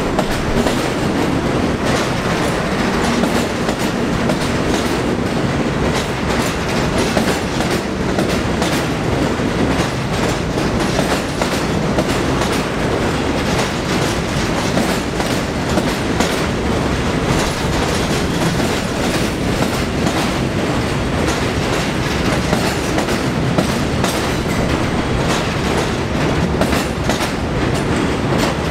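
Train of Budd-built R32 subway cars rolling by on elevated steel track, a steady rumble with the wheels clicking over rail joints.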